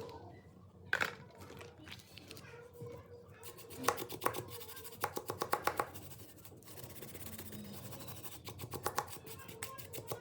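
Hand work on a phone with small tools: sharp clicks and scratching, with a quick run of light ticks about halfway through and more ticks near the end.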